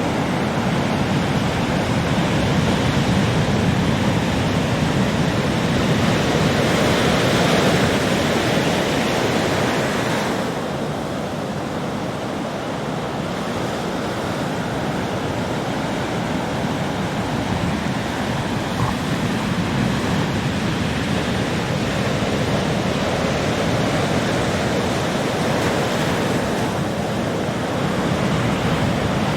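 Ocean waves breaking on a beach in a continuous rush of surf, swelling to a louder wash about a quarter of the way in and then easing off.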